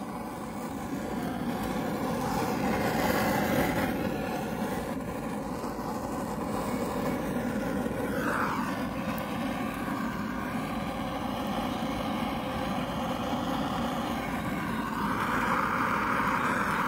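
Handheld Bernzomatic gas torch burning with a steady hiss, its flame held against charcoal briquettes to light them. The hiss swells over the first few seconds and grows brighter near the end.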